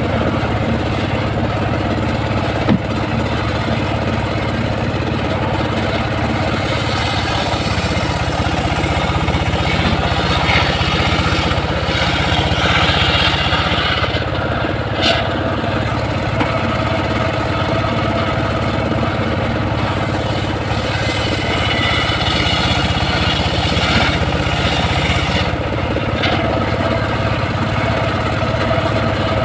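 Engine of a home-built circular sawmill running steadily, with the saw blade cutting into a log at times, which makes the sound harsher and higher during the cuts. A single sharp click about halfway through.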